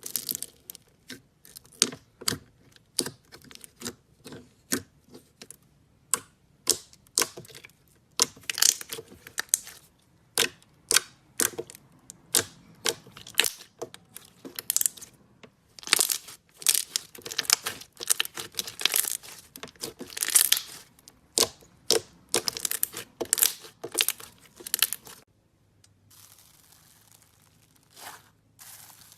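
Slime being squeezed and stretched by hand, making irregular sharp crackles and pops in quick clusters. They stop about four seconds before the end, leaving a faint hiss with one or two pops.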